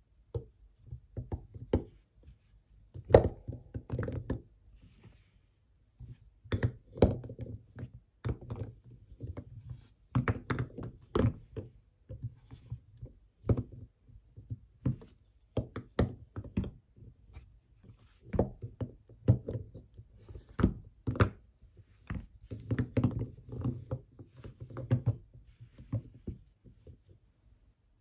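Hard bars of Palmolive soap knocking and clacking against one another as hands pick through and handle a heap of them, in irregular clusters of short knocks with brief pauses between.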